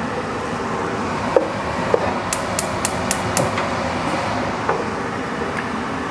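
A wooden spoon stirring tomato sauce in a large stainless steel stockpot, knocking now and then against the pot, over a steady rushing noise. About two seconds in comes a quick run of five sharp, high clicks, about four a second.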